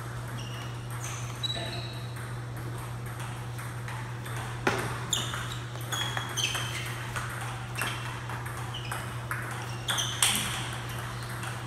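Table tennis balls being struck by rubber paddles and bouncing on the tables: irregular sharp clicks, many with a brief high ping, the hardest hits about a third of the way in and near the end. A steady low hum runs underneath.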